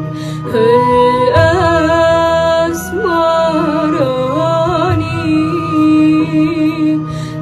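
A girl singing an Arabic song in a long, ornamented melodic line over a sustained instrumental accompaniment.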